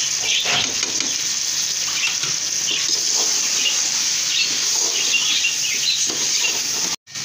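Chicken, tomatoes and spices sizzling in a pot on a gas flame, with scattered short scrapes as a metal spoon stirs them. The sound drops out briefly near the end.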